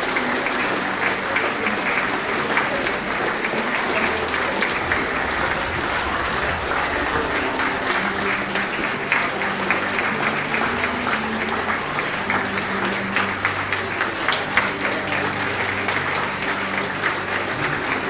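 A hall audience clapping steadily, many hands at once, without letting up.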